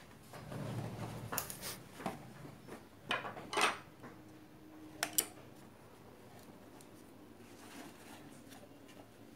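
Small metal parts of a blender motor being handled: a few light clicks and clinks in the first five seconds, some in quick pairs, over a faint rustle, then only quiet handling.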